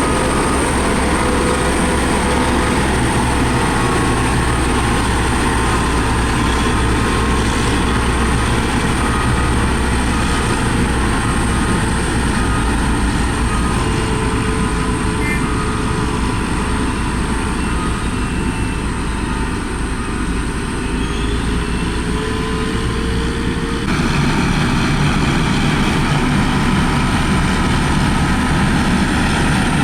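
Heavy road-building machinery engines running steadily at work, a continuous low drone that changes abruptly about three quarters of the way through.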